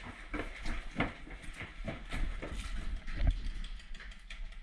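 Irregular footsteps and the knocking of gear as a player moves over a wooden floor and out onto dirt, with a couple of heavier thuds.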